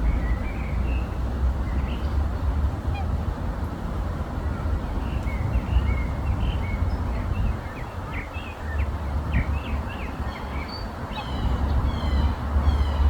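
Swans and other waterfowl calling: many short calls one after another, coming thicker near the end, over a steady low rumble.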